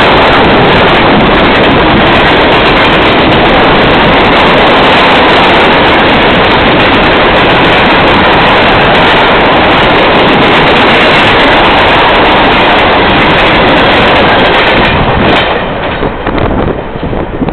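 Freight train's hopper cars rolling past close by: a very loud, steady rush of steel wheels on rail. About fifteen seconds in it drops off as the end of the train goes by, leaving uneven gusts of wind on the microphone.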